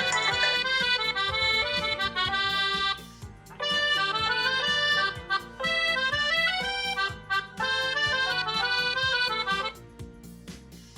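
Mobile phone ringtone playing: a bright melody of quick stepping notes over a steady beat. About ten seconds in the melody stops and only the quieter beat goes on.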